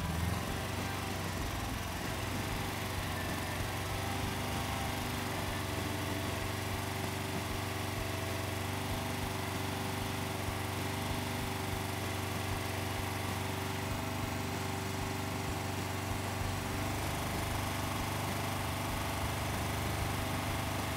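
UTV engine running steadily, held at about 3,000 rpm for a running stator output test.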